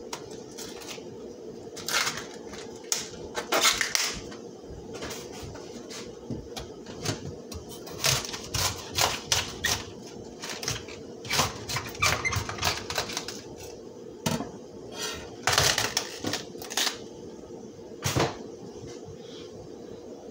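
Irregular clicks and knocks of a cabbage and kitchen things being handled while the cabbage is washed, with the sharpest knocks coming every second or two in clusters.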